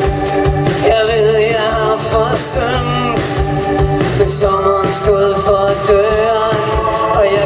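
Live band music with a steady beat and a wavering melody line over sustained chords.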